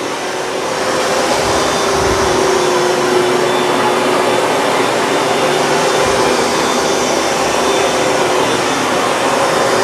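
Hoover Dual Power Max upright carpet cleaner running steadily, its suction motor pulling soapy rinse water back out of the carpet. It gets a little louder about a second in.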